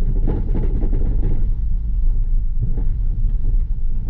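Gol quadrado's 1.6 CHT engine running through its mini-tubinho exhaust, a steady low drone throughout.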